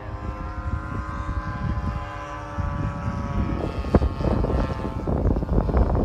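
Engine of a radio-controlled model biplane droning in flight overhead, its pitch shifting slightly as it passes. Wind buffets the microphone, more strongly in the second half.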